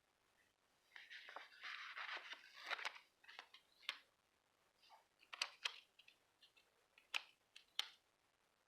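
Paper and sticker sheets being handled: a crinkly rustle for about two seconds, then a scattering of short, sharp clicks and snips.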